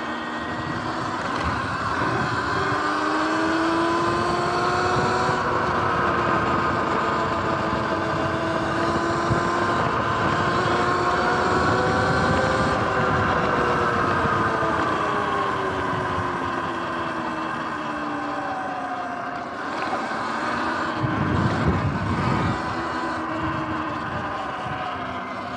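Sur-Ron electric dirt bike's motor and drivetrain whining while riding, the whine rising in pitch as the bike speeds up over the first few seconds and falling as it slows later on. Wind and road rumble sit underneath and swell briefly near the end.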